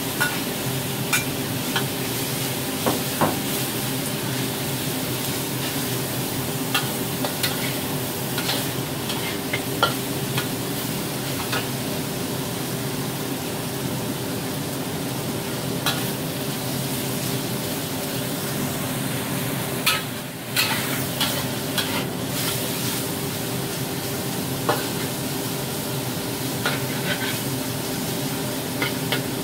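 Diced pork belly and dried tofu sizzling in oil in a wok while a spatula stirs and scrapes them. Irregular sharp clicks of the spatula against the wok sit over the sizzle, with a steady low hum beneath.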